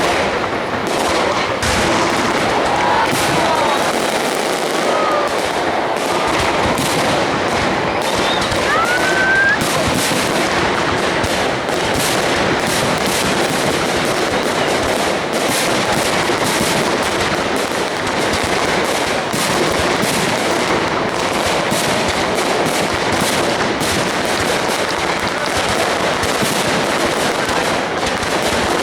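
Aerial fireworks display going off without a break: a dense, rapid crackle of bangs and pops, steady in loudness throughout.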